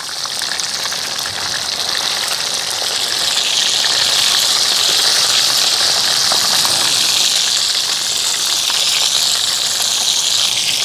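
Fish deep-frying in a pot of hot oil: a steady, crackling sizzle that swells over the first few seconds and then holds.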